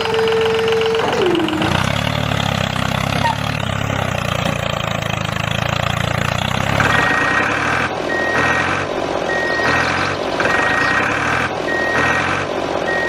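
A steady whine drops in pitch and stops in the first two seconds, then a tractor engine runs. From about seven seconds in, a reversing alarm beeps about once a second over the engine.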